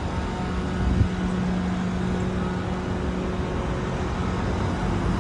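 Steady low rumble of road traffic with a vehicle engine's steady hum, and a brief low thump about a second in.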